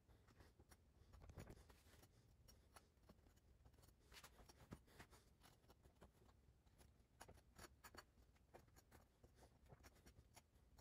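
Near silence, with faint, irregular scrapes and light clicks of a knife spreading frosting over cinnamon rolls on a plate.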